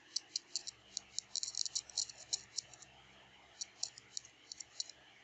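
Flux and solder crackling and spitting under a hot soldering iron on a small die-cast metal car body: sharp, irregular clicks that come thickest about a second and a half in, then again near the end.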